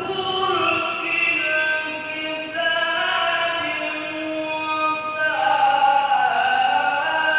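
A man's voice reciting the Qur'an in melodic tilawah style into a microphone, holding long, wavering notes, with a higher, louder phrase about five seconds in.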